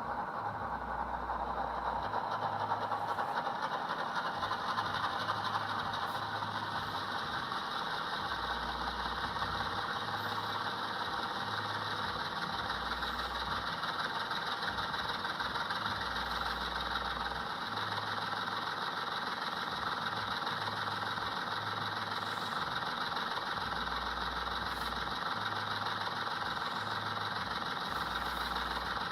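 Sound-decoder diesel engine sound from an HO scale locomotive model, played through its small onboard speaker: the recorded prime mover runs steadily through its startup sequence with a low repeating chug and a light rattle.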